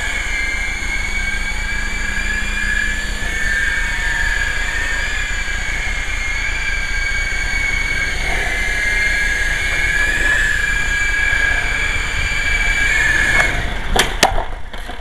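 Syma S033G coaxial RC helicopter's small electric motors and rotors whining steadily, the pitch wavering slightly, over wind rumbling on the microphone. The whine cuts off about a second and a half before the end, followed by a few sharp clicks.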